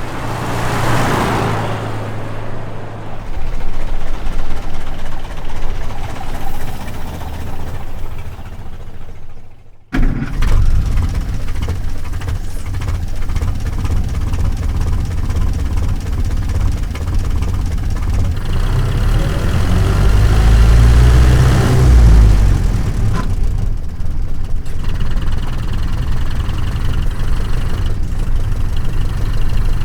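1927 Chevrolet roadster's four-cylinder 2.8-litre engine running, fading away just before ten seconds in. The engine sound then cuts in suddenly, runs steadily, rises in a brief rev around twenty seconds in, and settles back to idle.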